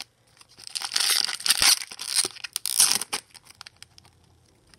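Foil wrapper of a hockey card pack being torn open and crinkled by hand. It is loudest from about a second in to about three seconds, then settles to quieter rustling.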